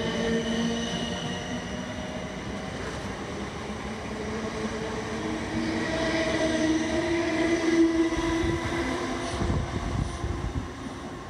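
South Western Railway electric multiple unit running along the platform and away, with wheel-on-rail noise and motor tones. The sound falls away near the end as the last carriage clears.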